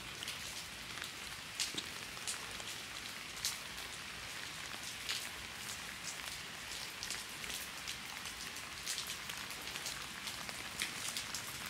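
Heavy rain falling steadily: a constant hiss with many sharp ticks of drops striking close by.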